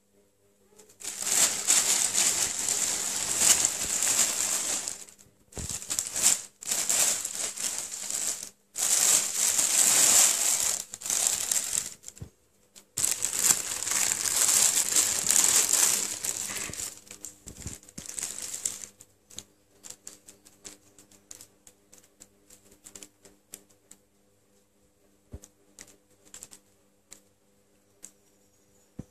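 Thin plastic carrier bag rustling and crinkling in long loud bursts, with a few short breaks, as a cat inside it squirms and the bag is pulled about. After about nineteen seconds only faint, occasional crinkles remain.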